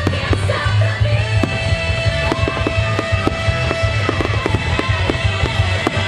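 Fireworks bursting and crackling over loud music from the show's soundtrack. The cracks come thicker and faster in the second half.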